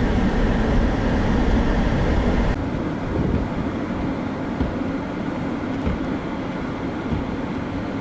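Blizzard wind buffeting the microphone: a steady noisy roar with a heavy, fluttering low rumble that drops off abruptly about two and a half seconds in.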